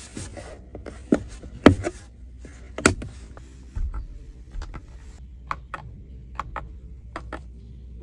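Fingers clicking and tapping on the plastic trim and switches of a BYD Seagull's cabin: three sharp clicks in the first three seconds, then a run of lighter clicks as the overhead light button is pressed, over a low steady hum.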